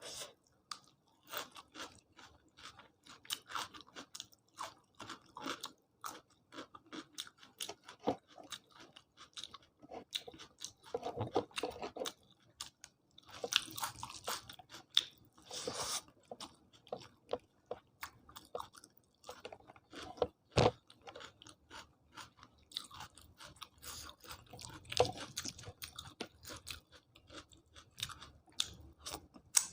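A person chewing a meal close to the microphone, with irregular crunching bites and small crackling mouth sounds. There are denser bursts of chewing near the middle, and a single sharp click about twenty seconds in.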